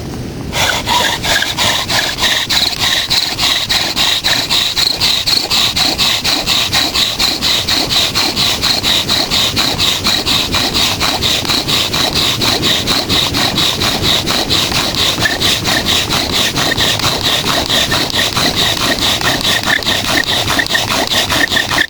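Hand saw cutting through a firewood log with fast, even back-and-forth strokes, each stroke giving a rasping squeal. It starts about half a second in and keeps up steadily.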